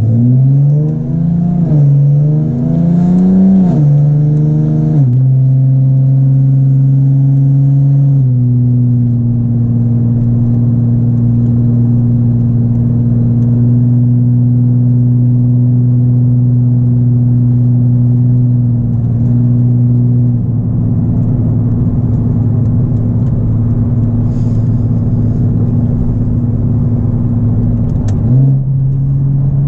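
Nissan 370Z's 3.7-litre VQ V6 through a Greddy single RS exhaust with Motordyne art pipes, heard from inside the cabin while driving. The revs climb and fall several times in the first five seconds, then the engine runs steadily at cruising revs, with a quick dip and rise in revs near the end.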